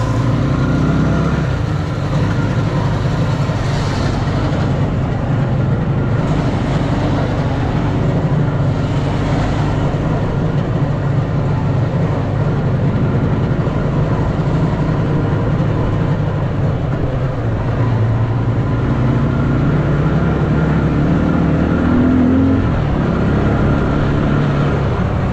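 Engine of a homemade three-wheeled all-terrain motorcycle running under way as it is ridden. The engine note shifts a little up and down with the throttle.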